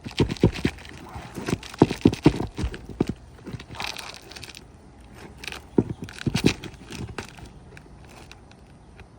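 Sharp knocks and taps on an asphalt shingle roof in three quick clusters, with a brief scrape in between, as shingles are worked loose.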